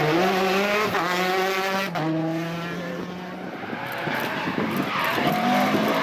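Citroën DS3 rally car's engine at full throttle, the pitch rising and breaking at quick upshifts about one and two seconds in, then holding a steadier note as the car pulls away and fades. Near the end the engine of another rally car approaches.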